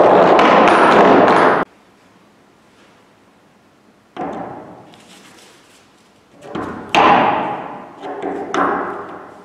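Metal cylinders rolling down a wooden inclined board, a steady rolling noise that cuts off suddenly about a second and a half in. Later come a knock and then a cluster of knocks and scrapes as cylinders are set down on the board and a wooden slat is laid against them.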